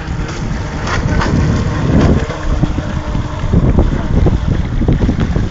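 Wind buffeting the microphone: a loud, gusting low rumble, with a faint steady hum for about a second midway.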